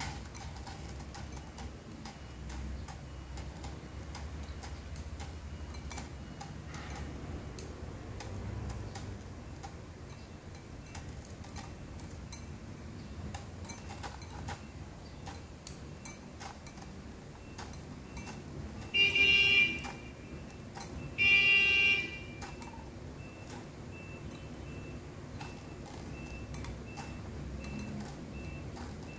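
Two loud honks of a vehicle horn, each just under a second, about two seconds apart, followed by a faint high beep repeating evenly like a reversing alarm.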